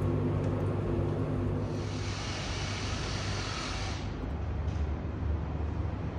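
Street traffic noise: a steady low engine hum, with a band of hiss that comes in after about two seconds and cuts off suddenly a couple of seconds later.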